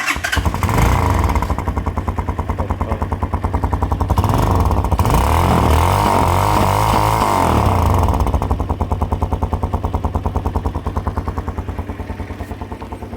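Italika DM200 single-cylinder four-stroke motorcycle engine starting up and idling, revved for a few seconds in the middle and then settling back to idle. It breathes through a muffler with two screwdriver holes punched in it, which gives a slightly louder, throatier exhaust note.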